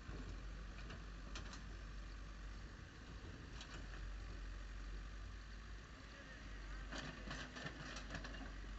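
Faint, steady low rumble of heavy construction machinery engines running, with a few light clicks about seven to eight seconds in.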